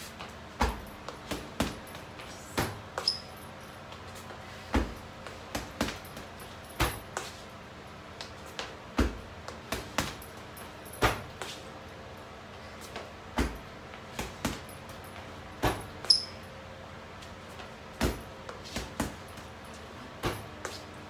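Gloved punches landing on an Everlast heavy punching bag: an irregular run of dull thumps, about one or two a second, some in quick doubles.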